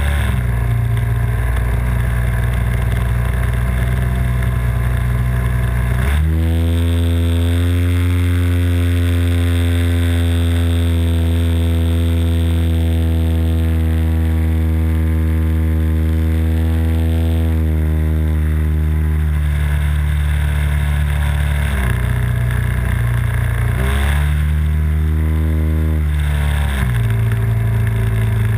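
Engine and propeller of a radio-control model Bücker Jungmann biplane, heard from on board in flight and running loud and steady. The pitch drops back near the start, rises sharply about six seconds in and holds, then eases down in two steps. It rises again briefly and drops back near the end.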